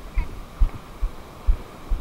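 Regular low thumps on the microphone, a little over two a second, over a steady background hiss.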